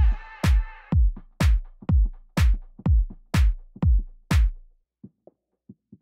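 Background electronic dance music with a steady drum-machine kick about twice a second. The synth melody stops about a second in, leaving the beat alone, which cuts out near the end, followed by a few faint short notes.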